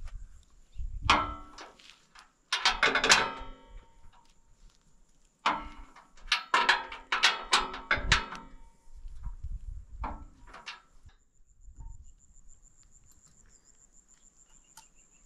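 Several clusters of sharp knocks and clatter with a brief ringing after each, over an insect's high, steady trill that turns into a pulsing trill near the end.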